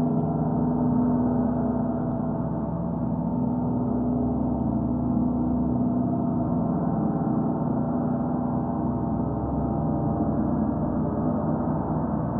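Gongs resonating: a sustained, steady wash of many overlapping low tones with no separate strike standing out.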